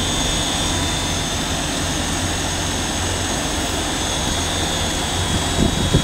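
A continuous carbonization furnace plant running: a steady, even machine drone with a low hum and a thin high whine over it.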